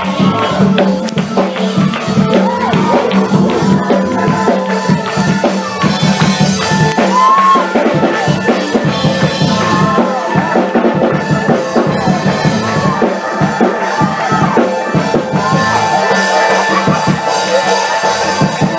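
Gospel praise-break music from a church band: fast, driving drums and tambourine over held keyboard chords.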